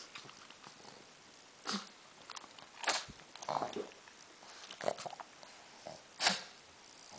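Pug coughing in a fit: about five short coughs spaced a second or so apart, with small clicks between them, which the owner takes for choking.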